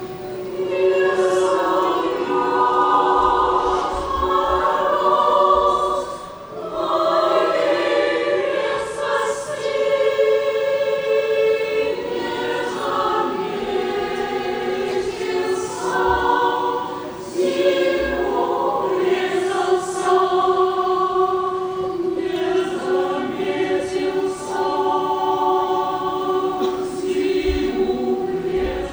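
A choir singing in sustained chords, phrase after phrase, with brief breaths between phrases.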